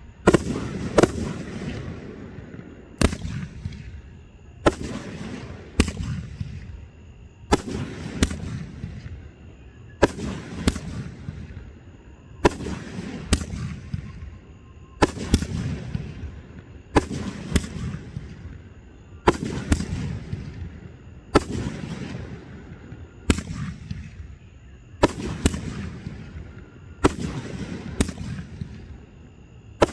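Fireworks display: aerial shells going off one after another as sharp bangs, mostly in pairs about half a second apart and a pair roughly every two seconds, each trailed by a low rumbling echo.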